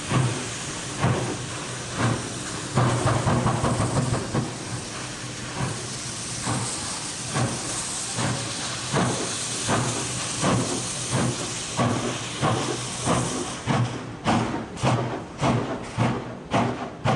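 SY class 2-8-2 steam locomotive working hard under load, its exhaust beats quickening from about one a second to about two a second as it gathers speed, over a steady hiss that stops about 14 seconds in.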